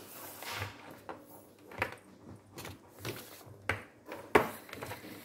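Hands handling a power adapter's DC cable while sliding heat-shrink tubing along it: irregular rubbing and rustling, with a few light clicks and knocks, the sharpest a little after four seconds in.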